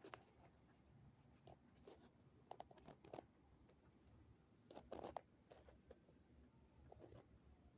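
Faint, irregular clicks from a neck as it moves, some coming in quick pairs or small clusters, the densest about five seconds in.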